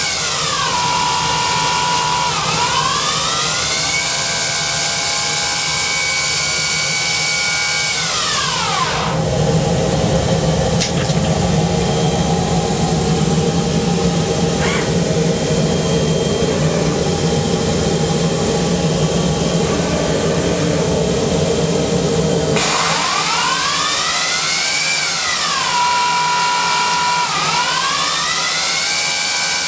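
Emco Maier Emco Turn 425 CNC turning center running its cycle: the spindle motors whine as they spin up, hold speed and slow down again, the pitch rising and falling. From about nine seconds in, the whine gives way to a lower, rougher steady machine noise for some fourteen seconds, then the rising and falling whine returns.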